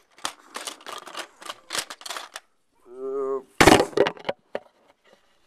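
Plastic Lego bricks clicking and clattering as a Lego garage set is pulled apart by hand. A brief vocal hum comes about three seconds in, then a loud crash of the Lego pieces, followed by a few scattered clicks.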